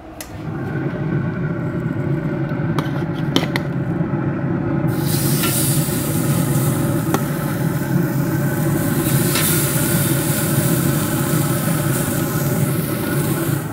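A low steady rumble with a few clicks of metal tongs. About five seconds in, loud sizzling starts as seasoned ribeye steaks go onto a cast iron griddle plate preheated to searing temperature inside a pellet grill.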